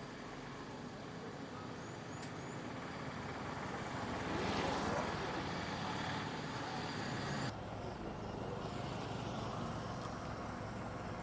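Outdoor road noise, with a motor vehicle passing that is loudest about four to five seconds in. The background noise changes abruptly about seven and a half seconds in.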